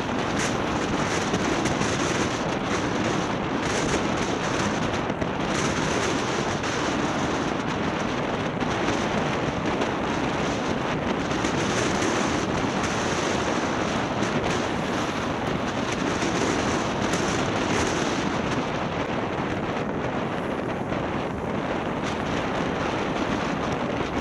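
Steady wind noise on the microphone: a dense, even rushing with no breaks.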